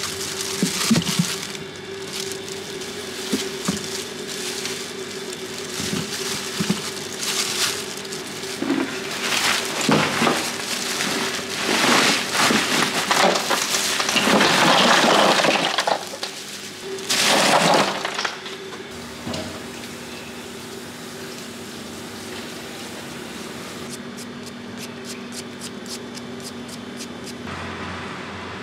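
Fruit and plastic bags being handled in a wet plastic cooler box: rustling, knocking and sloshing noises that come and go, loudest in the middle, over a steady hum.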